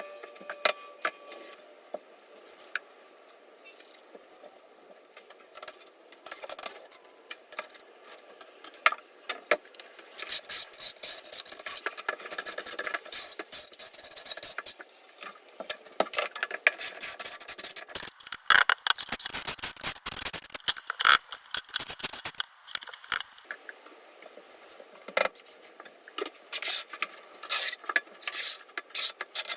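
Floor-tiling handwork: irregular scraping and rubbing of a trowel working thinset mortar, with many sharp clicks and knocks of tile and tools, busiest in the middle stretch.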